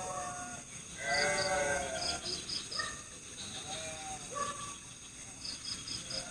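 Night forest ambience: a steady high-pitched insect chorus with short repeated chirps, over which several bleat-like animal calls of about a second each sound, the loudest about a second in.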